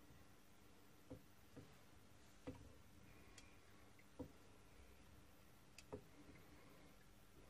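Near silence broken by about seven faint, irregular metallic clicks and light taps from handling a brass pen part in a lathe chuck while it is centred against a dial indicator.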